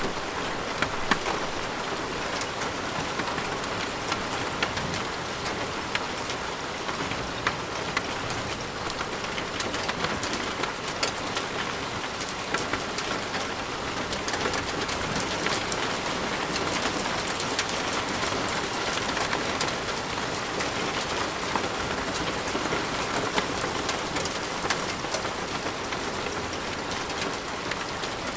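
Steady heavy rain, with many individual drops striking close by as sharp little clicks over a constant hiss.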